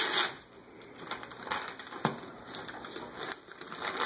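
Wrapping paper being torn and crinkled off a boxed present by hand, in irregular rips and rustles with short crackles.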